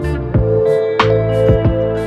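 Instrumental background music with held tones and a steady beat.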